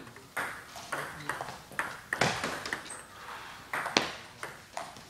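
Table tennis ball clicking off rackets and tables in an irregular string of sharp ticks, about one to three a second, with the hollow ring of a gym hall after each hit.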